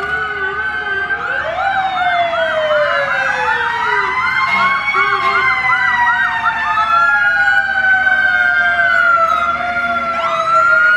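Sirens of several emergency vehicles, a fire-department SUV and an ambulance among them, sounding at once as they approach: long rising and falling wails overlap, with a fast yelp of about four cycles a second for a few seconds in the middle. The sirens grow a little louder.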